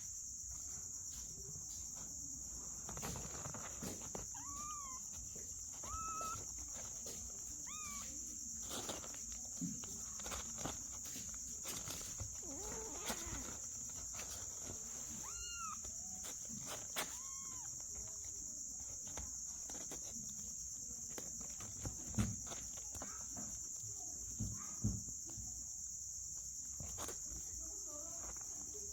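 Kittens mewing, about six short high cries that rise and fall in pitch, over a steady insect chirring, with scattered light knocks and two louder bumps in the second half.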